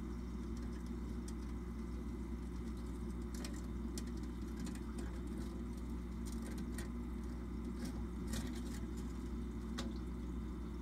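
Steady low hum of aquarium equipment, with scattered light clicks and taps starting about three seconds in, as a softshell turtle climbs the plastic ramp of an above-tank basking platform.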